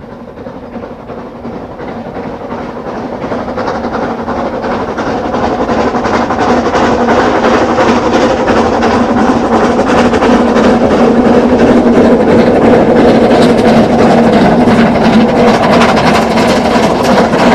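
Narrow-gauge steam train approaching, its sound growing steadily louder over about ten seconds and then holding loud and steady as it passes close.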